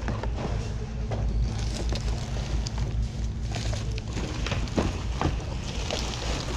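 Steady low hum of a large store with scattered knocks, clicks and rattles of secondhand goods being handled and shifted in thrift-store bins.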